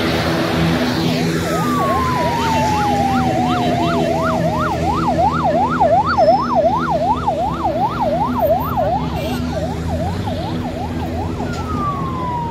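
Airport fire-rescue truck sirens: a fast yelp sweeping up and down about three to four times a second, with a second siren gliding down in pitch near the start and again near the end. A steady engine hum runs underneath.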